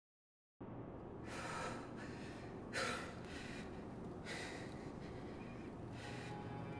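A man breathing heavily in gasps, four breaths about a second and a half apart, the second the loudest, over a low steady hum.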